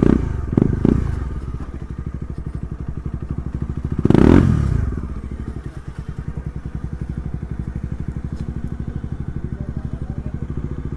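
Motorcycle engine idling with an even pulsing exhaust note, blipped briefly twice near the start and revved once about four seconds in before settling back to idle.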